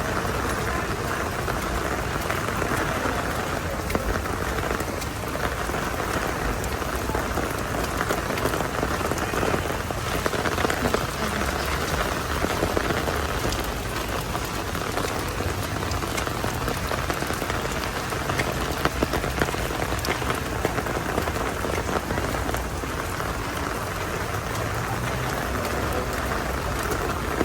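Heavy rain falling steadily: an even hiss of downpour with many small drop impacts ticking through it.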